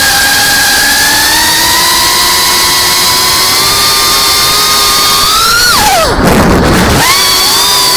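FPV racing quadcopter's brushless motors and propellers whining steadily over rushing air, the pitch creeping up. About six seconds in the whine drops sharply to a low rumble as the throttle is cut for a dive, then climbs back about a second later when power comes back on.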